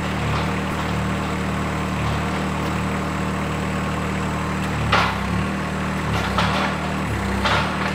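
Compact John Deere tractor's diesel engine running steadily, with three short sharp clunks about five, six and a half, and seven and a half seconds in as the unrestricted hydraulic grapple clamp jerks on each small lever movement.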